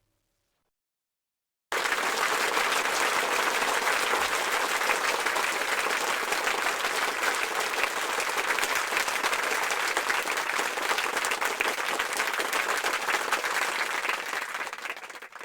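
Crowd applause: many hands clapping in a dense, steady patter. It starts suddenly after nearly two seconds of silence and fades out near the end.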